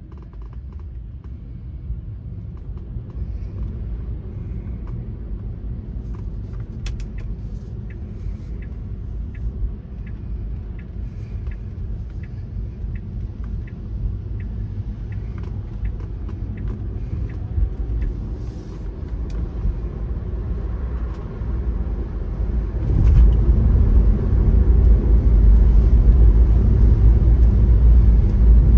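Car road noise heard from inside the cabin while driving on wet pavement: a steady low rumble with tyre hiss. Faint ticks run through the middle. About three-quarters of the way in, the rumble and hiss grow clearly louder as the car speeds up.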